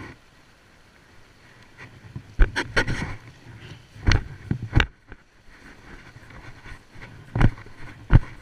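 Close handling noise of a body-worn action camera as the angler moves on the rocks: a few clusters of sharp knocks and rubs, about two and a half, four and seven to eight seconds in, over a faint wash of sea and wind.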